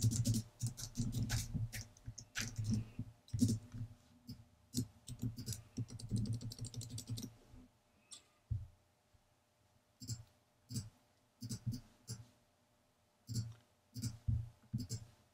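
Typing on a computer keyboard in quick runs of key clicks, giving way about halfway through to a few scattered single clicks.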